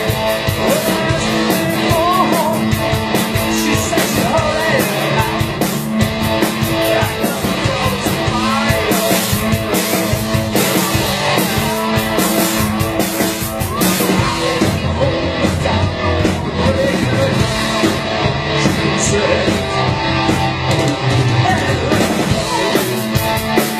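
Live rock band playing amplified electric guitar over a steady drum beat.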